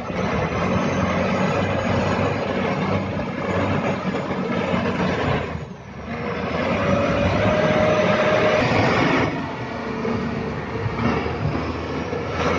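Wheel loader's diesel engine running as it works the landslide debris, with a steady whine for a second or two partway through.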